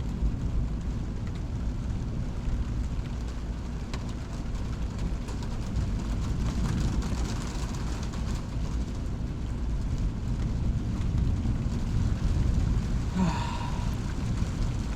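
Thunderstorm rain falling steadily over a continuous low rumble. A brief rising squeak comes near the end.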